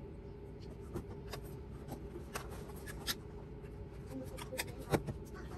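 Scattered light clicks and taps of plastic toy pieces being handled, about six in all with the loudest near the end, over a steady low hum.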